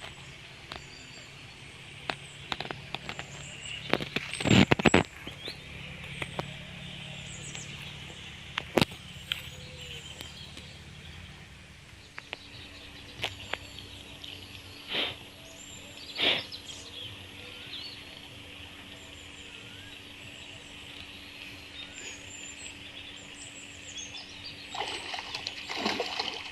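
Outdoor ambience with birds chirping over a steady high hiss, broken by a few sharp knocks, the loudest about four and a half seconds in and again near nine seconds.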